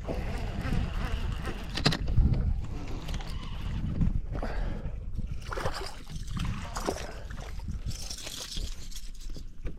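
Water sloshing and gurgling around a small fishing boat, with several knocks from handling in the boat.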